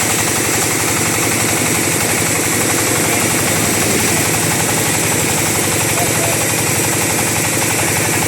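Two-stroke chainsaw engine running steadily at a constant speed.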